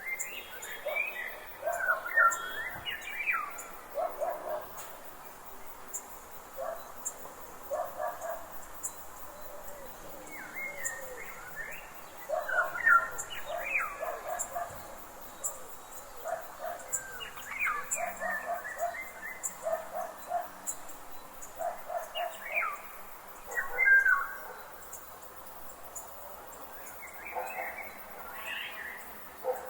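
Songbirds singing in a forest, in phrases that recur every few seconds: quick sweeping whistles with runs of short, lower repeated notes between them.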